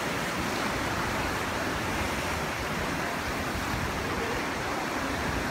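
Steady rush of ocean surf washing and breaking around black lava rocks.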